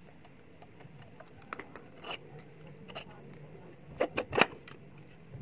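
Screwdriver and hands working inside a circular saw's plastic motor housing to free the field coil (stator): scattered light clicks and clinks, then three sharp knocks in quick succession near the end.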